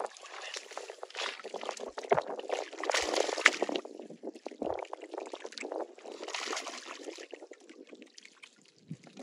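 Hands splashing and churning shallow muddy water while groping for and grabbing catfish, in irregular bursts, loudest a couple of seconds in and again later, fading near the end.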